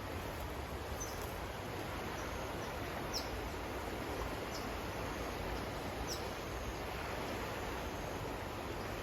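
Steady outdoor background hiss with a low rumble, and a handful of short, high bird chirps scattered through it, about one every second or two.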